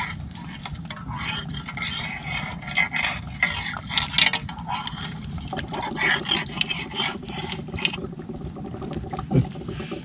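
Water sloshing and splashing, with many irregular small clicks and scrapes, as an arm gropes for a mud crab in a flooded hole under rocks.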